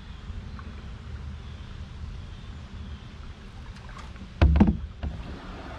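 Canoe hull knocking and scraping over a log in the river about four and a half seconds in, a single loud low bump over a steady low rumble.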